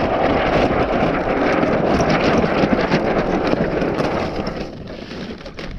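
Wind buffeting the microphone and water washing along the hull of a Hobie Adventure Island sail kayak under sail in shallow water; the noise eases off near the end.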